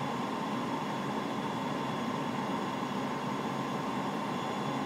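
Steady flight-deck noise on final approach: an even hiss of airflow and ventilation, with a few faint steady tones above it.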